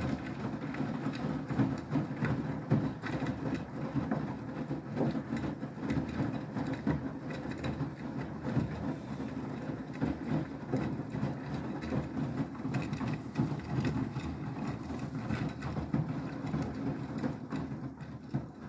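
Beko WTK104121W washing machine running in the cool-down stage of its Quick 90 programme: a steady low hum with frequent small irregular clunks and knocks.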